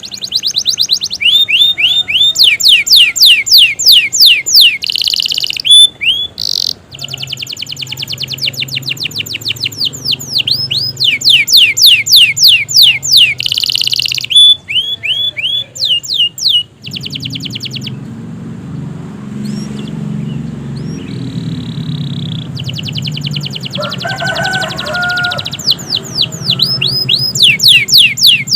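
A domestic canary singing a long, continuous song. It runs fast trills of high, repeated descending notes in long phrases, with brief breaks. There is a quieter stretch past the middle with a low hum, and then the trilling starts again.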